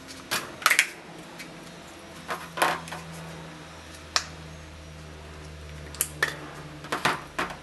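Hard plastic parts of a Tommee Tippee Explora straw cup lid clicking and clacking as they are pried apart and set down on a table: a dozen or so sharp clicks and taps at uneven intervals.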